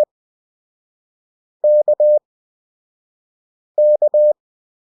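Morse code practice tone (CW) keyed at 20 WPM character speed with wide Farnsworth gaps: the letter K (dah-dit-dah) sent twice, about two seconds apart, a single steady beep with crisp on-off keying.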